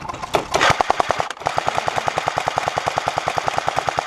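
Airsoft SAW-style support gun firing on full auto: a short burst, then after a brief pause a long continuous burst of about 13 shots a second.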